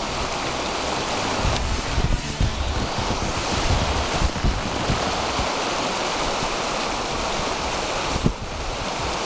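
Wind buffeting the microphone: a steady loud rush with gusting low rumble, and a single sharp knock about eight seconds in.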